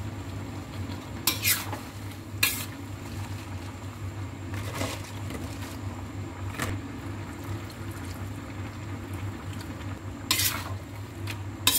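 A metal spatula scrapes and clanks against a stainless-steel wok as vegetables are stir-fried, a handful of strikes a few seconds apart with the loudest near the start and near the end. Underneath runs a steady low hum and a soft frying sizzle.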